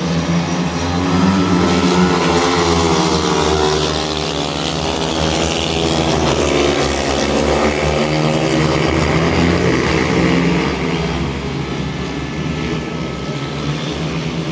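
Speedway motorcycles' 500 cc single-cylinder methanol engines running hard as a pack of riders passes round the bend, several engine notes overlapping and rising and falling in pitch. The sound eases off after about ten seconds as the pack moves away.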